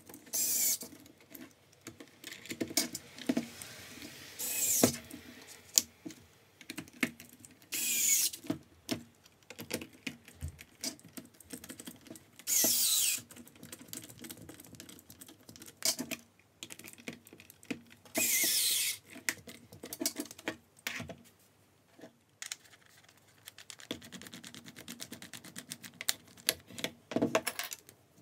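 Small cordless electric screwdriver whirring in about five short bursts, each around a second long, its whine falling in pitch toward the end of each burst as it drives screws into a drill's plastic housing. Between the bursts come light clicks and taps of screws and parts being handled.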